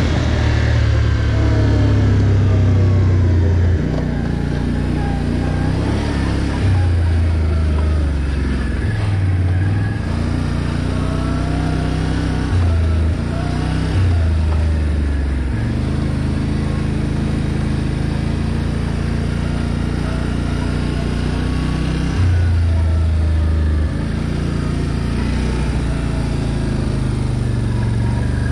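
ATV engine running steadily loud, its note stepping up and down every few seconds with the throttle.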